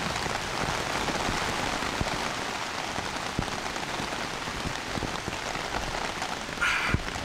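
Heavy rain falling steadily on a tent, with scattered drops ticking against the fabric. A short, louder burst of noise comes near the end.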